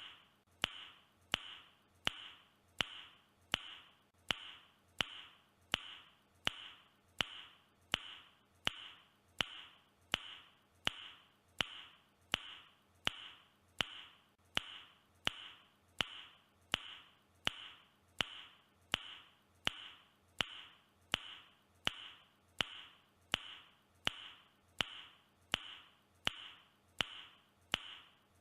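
A man's mouth click repeated at a steady pace, about three every two seconds, each click with a short ringing tail. It is one clicking noise looped over and over.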